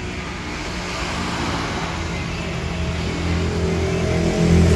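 A motor vehicle's engine running and growing steadily louder, loudest near the end.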